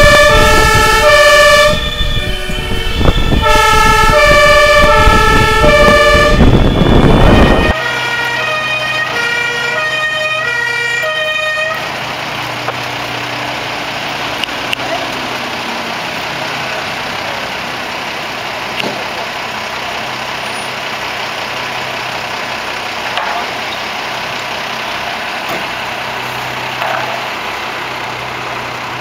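German fire engine two-tone siren (Martinshorn) stepping back and forth between its two pitches over loud engine and road noise. It drops in level about 8 s in and stops about 12 s in. After that comes a steady outdoor bed with a low engine hum, a fire engine idling.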